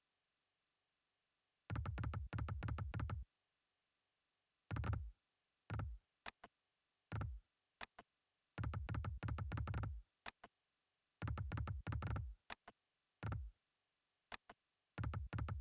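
Online video slot game sound effects: short runs of rapid electronic ticking and clunking as the reels spin and stop, with a few single clicks in between and stretches of total silence.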